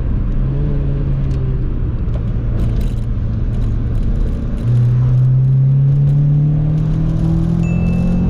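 Honda Civic EG5's four-cylinder engine through an aftermarket exhaust, running steadily, then about halfway through getting louder and climbing slowly in pitch as the car accelerates.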